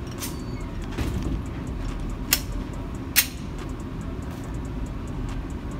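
Two sharp gunshot reports about a second apart, with a couple of fainter knocks before them, over a steady low rumble.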